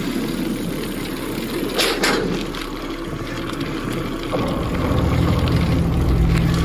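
Steady rushing noise of a moving bicycle ride, with a couple of short knocks about two seconds in. A strong low steady hum comes in suddenly a little over four seconds in and carries on.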